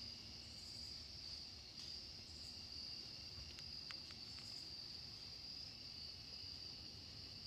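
Steady, high-pitched insect chorus at dusk, with a few faint clicks near the middle.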